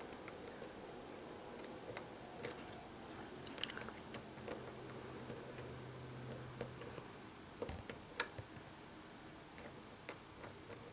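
Faint, scattered small metallic clicks and ticks of a short hook pick working the pin stack of a FAB 50 lock under tension, the core held in a false set.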